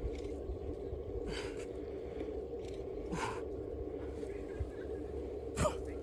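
A man's hard exhaled breaths as he does push-ups with a log tied on his back, three of them about two seconds apart; the last, near the end, is the loudest and voiced. A steady low rumble runs underneath.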